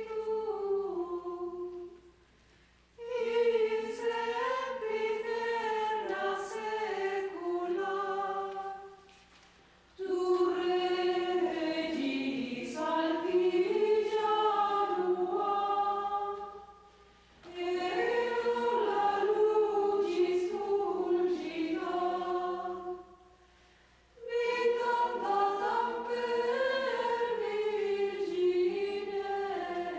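Women's choir of nuns singing a slow unaccompanied hymn in phrases, with a short pause for breath about every five to seven seconds.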